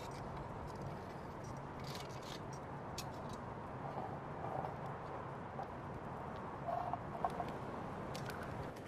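Steady outdoor background noise with a few light clicks and some short high chirps, the loudest of them a little after halfway.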